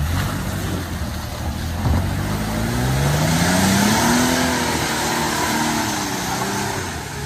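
Toyota Prado engine revving up hard and easing back down, with a sharp knock as the revs begin to climb. It is straining without moving forward: it has lost drive in forward gear, which onlookers suspect comes from broken differential gears.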